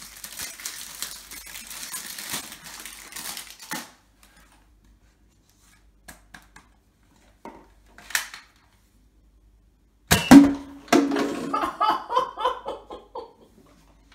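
Rustling as the Nerf Mega HotShock blaster and darts are handled, then a few faint clicks. About ten seconds in the spring-powered blaster fires with a loud sharp snap, and a second knock follows less than a second later as the dart hits, then a short clatter.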